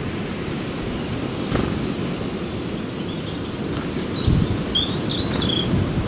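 Outdoor ambience: a steady low rumble with a few short knocks, and small birds giving quick high chirps in the second half.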